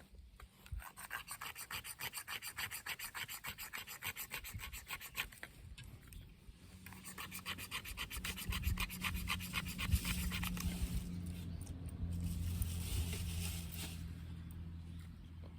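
Rapid rhythmic rasping strokes, about five a second, in two runs with a short break near the middle; a steady low hum comes in about halfway.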